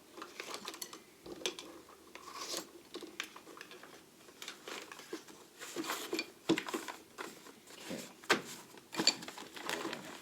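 Small tools and loose items being handled and shuffled in a toolbox drawer: irregular clicks, clinks and rustling, with the sharpest knock about eight seconds in.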